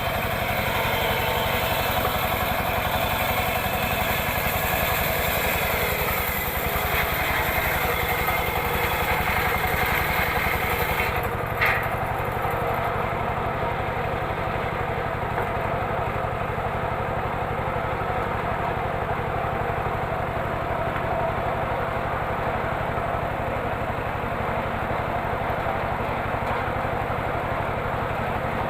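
Homemade engine-driven circular saw running steadily while ripping teak, the cut giving a hissy high edge for about the first eleven seconds. Near the middle there is a brief knock, after which the hiss drops away and the engine and blade run on steadily.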